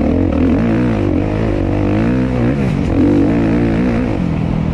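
Suzuki RM-Z250 four-stroke single-cylinder dirt bike engine revving up and down as the throttle is worked through the woods, its pitch rising and falling several times before settling to a steadier, lower note near the end.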